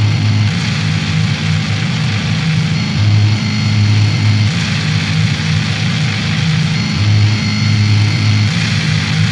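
Dark ambient noise soundscape: a loud, dense wall of hiss over a low droning hum that swells and fades irregularly every few seconds.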